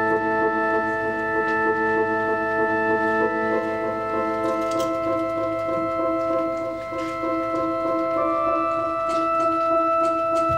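Live experimental ensemble music: a slow, drone-like texture of long held notes, with new notes joining about a third of the way in and again near the end.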